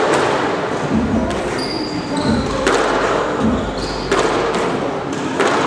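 Squash ball struck with racquets and smacking off the court walls, a sharp crack every second or so with echo in the enclosed court. Short high squeaks of court shoes on the floor between the shots.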